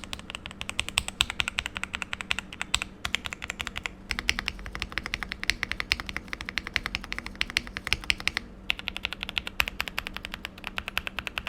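Fast typing on a foam- and tape-modded Novice68 mechanical keyboard with Akko Cream Yellow linear switches and GMK Modo clone keycaps. It is a dense, steady run of keystrokes, broken by brief pauses about four and eight and a half seconds in.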